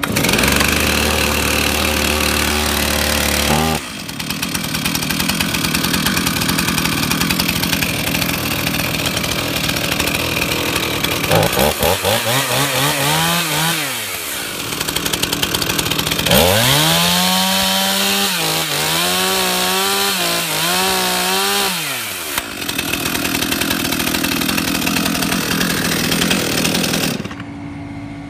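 New Stihl two-stroke chainsaw catching at half choke and running fast, then dropping to idle about four seconds in as the trigger is squeezed to take it off the choke. It is then revved up and back down, once briefly and later for several seconds with a few blips, before settling to idle again.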